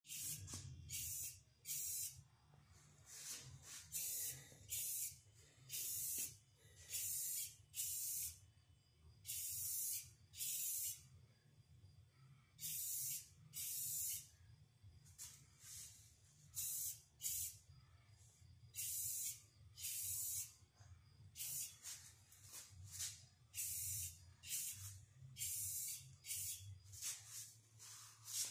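Aerosol spray-paint can hissing in many short bursts, most under a second long and a few lasting about a second, repeated irregularly as paint is sprayed onto a small-block Chevy 350 engine block.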